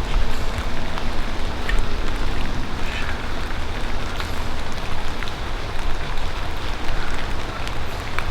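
Rain falling, with scattered drops tapping on a plastic bag wrapped around the camera, over a steady low rumble.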